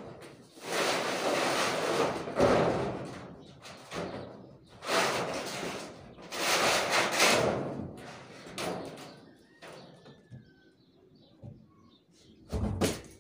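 Corrugated galvanized steel roofing sheets sliding and scraping over steel C-channel purlins as they are pushed into position from below, in several long scrapes with a rattle of metal. A single heavy thump near the end.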